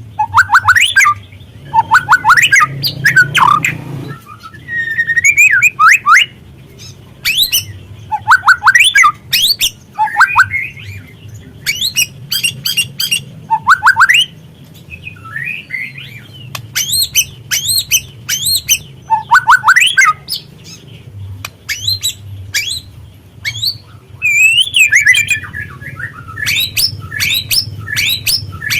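Juvenile white-rumped shama calling: rapid runs of sharp chirps and harsh squawking rattles mixed with quick rising and falling whistled notes, broken by short pauses.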